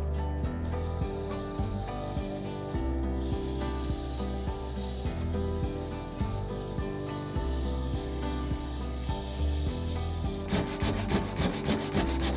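Cherry wood being worked as it spins on a small lathe: a steady rubbing and scraping against the turning piece. Near the end the rubbing breaks into a quick run of rapid strokes.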